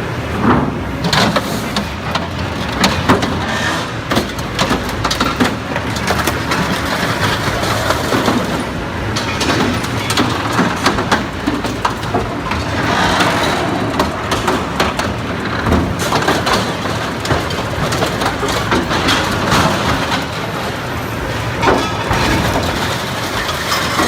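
Heavy machinery at work, its engine running under a dense stream of cracking and crushing noises.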